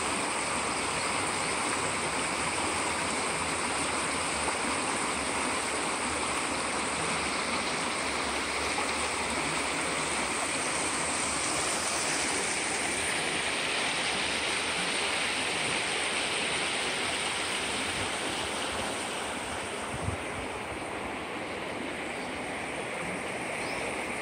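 Shallow river running over stones and riffles: a steady rushing and babbling of water.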